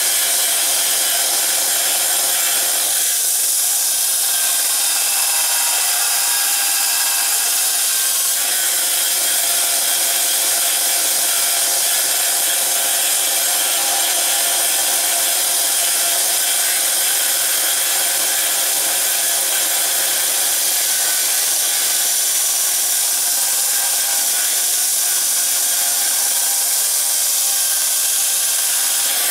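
Bench belt sander running steadily while a steel knife blade is held against the abrasive belt to grind its bevel, a constant high hiss.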